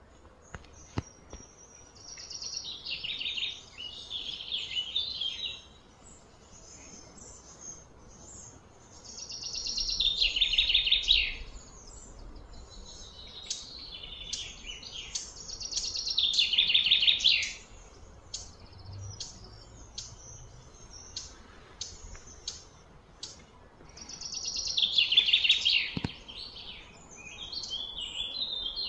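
Songbird singing outdoors: repeated phrases of rapid, high notes that slide down in pitch, each lasting about two seconds and coming back every six or seven seconds, with short chirps in between.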